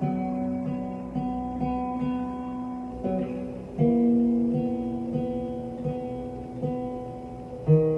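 Acoustic guitar music: slow, ringing chords over a soft low note picked about twice a second. The chord changes about four seconds in and again near the end.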